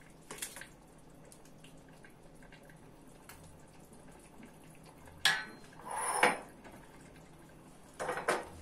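A metal ladle knocking against the steel pot and the plastic funnel, with a short scrape and pour just after the loudest knock about five seconds in, as thick hot pepper-tomato sauce is ladled into a glass jar; another brief clatter near the end.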